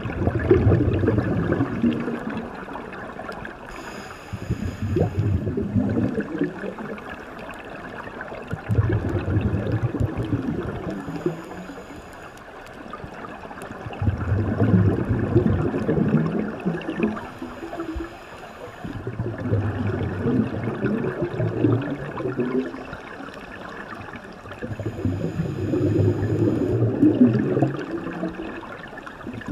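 Scuba diver breathing through a regulator underwater: about six long rushes of exhaled bubbles, one every five seconds or so, with a faint high hiss of inhalation in the gaps between them.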